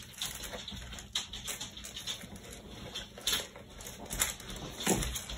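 Wax paper crinkling and rustling as it is tucked inside a composition book's cover, with light scattered taps and scuffs of hands pressing the book.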